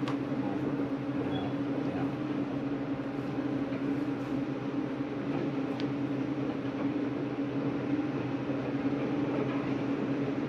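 Steady low droning hum, unbroken throughout.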